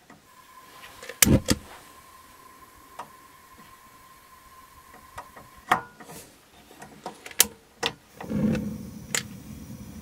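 Suburban RV propane cooktop: a run of sharp clicks from the burner knob and its spark igniter, then, about eight seconds in, a burner catches and its gas flame runs on with a steady rushing sound.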